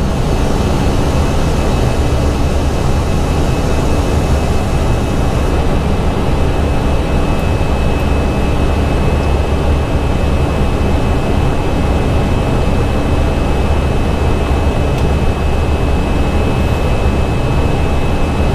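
Steady flight-deck noise of an Airbus A320 descending: an even rush of airflow and engine noise, heaviest in the low rumble, with a thin steady high whine running over it.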